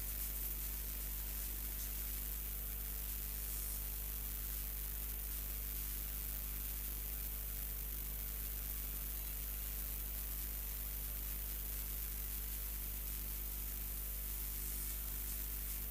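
Steady static hiss over a low electrical hum, unchanging, with nothing else standing out.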